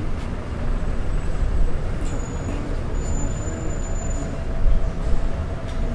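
City street traffic: a steady low rumble of passing motor vehicles.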